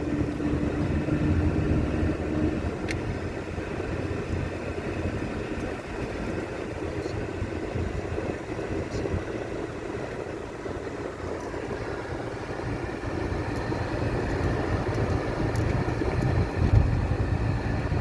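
Steady rumble of a running motor vehicle, like a car's engine and road noise, with a faint hum that fades out a few seconds in.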